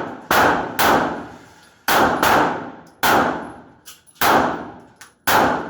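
A string of about seven gunshots fired at an uneven pace, each shot cracking sharply and ringing out with echo before the next.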